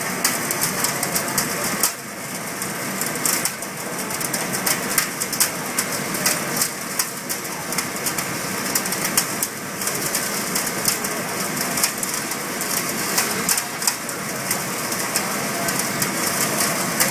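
Industrial sawdust burner running at full fire: a steady rushing noise of flame and blower with dense, rapid crackling throughout.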